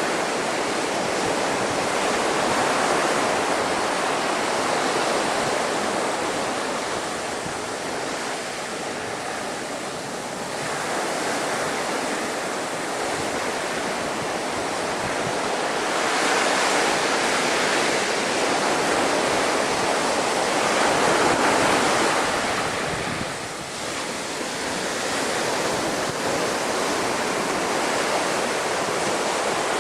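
Storm-driven bay waves at high tide surging and breaking as continuous rushing surf, swelling louder in several surges and easing briefly between them.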